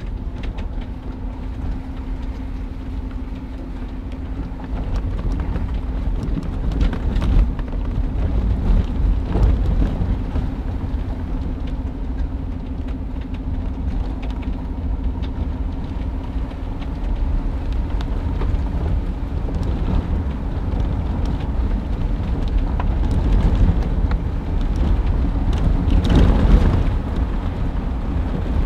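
Cab interior of a 1992 Toyota Land Cruiser 80 series driving on a wet dirt road: low engine and road rumble with a steady hum that fades about two-thirds of the way through, and scattered knocks and rattles. Rain and windshield wipers on the glass.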